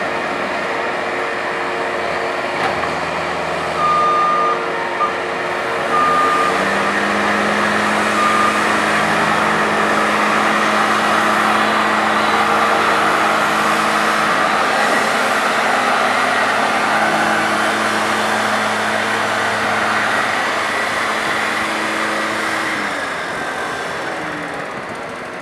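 Skid steer loader's diesel engine running and revving up about six seconds in, held high under load, then dropping back near the end. A few short reversing-alarm beeps sound in the first third.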